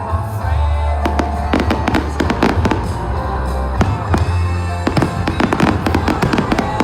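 Fireworks going off in quick succession: many sharp bangs and crackles, with music and a steady low bass underneath.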